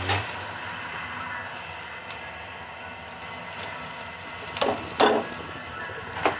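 Chopped onions sizzling steadily in a frying pan over a gas burner. Near the end, cubed luncheon meat is tipped in from a bowl, with a few sharp knocks of the bowl against the pan.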